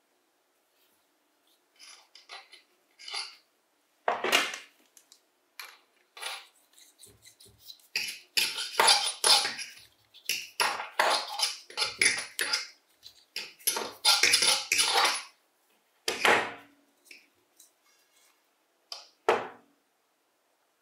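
Small metal parts being handled on a workbench: a run of irregular clinks, rattles and scrapes, with busier handling in the middle stretch and a few single knocks near the end.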